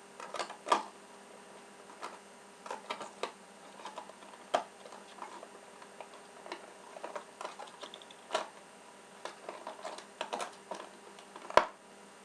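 Scattered light clicks and taps of small Swiss Army pocketknives being handled, with a sharper click near the end.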